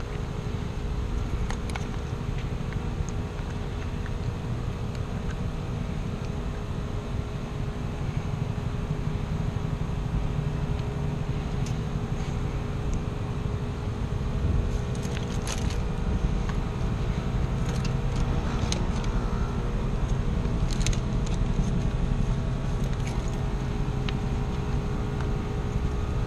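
Rooftop heat pump condensing unit running in cooling: a steady mechanical drone with a low hum and a few steady tones. Scattered sharp clicks and rattles come in over it, mostly in the second half.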